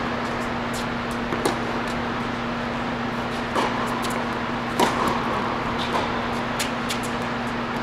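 Tennis balls struck by racquets and bouncing on a hard court during a rally: a few sharp pops, the loudest about five seconds in, over a steady hum of the indoor hall.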